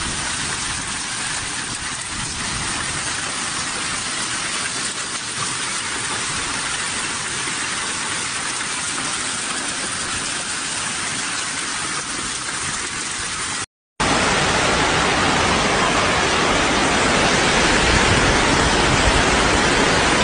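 Steady rushing noise of a torrential downpour and floodwater running down a hail-covered street. After a brief break about fourteen seconds in, a louder steady rush of a flash-flood torrent.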